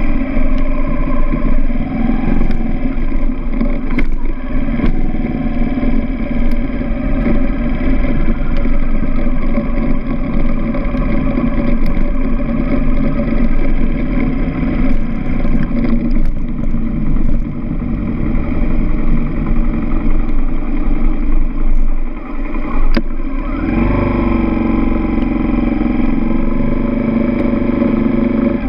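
Dirt bike engine running while riding, heard from a camera mounted on the bike, its pitch falling and rising with the throttle. About 22 seconds in it drops away briefly, then revs back up.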